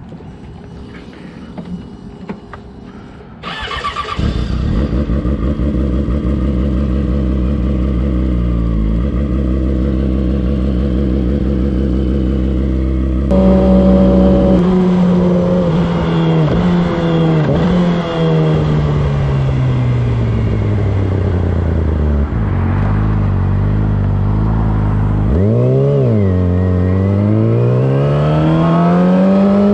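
Motorcycle engine. It is quiet for the first few seconds, then comes in loud about three and a half seconds in and runs at a steady idle. Later, while riding, its pitch falls gradually as the bike slows, a quick blip comes near 25 seconds, and the revs climb as it accelerates toward the end.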